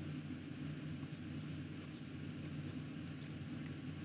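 Wing Sung 601A fountain pen nib scratching lightly across notebook paper in short strokes while lettering a heading, over a steady low hum.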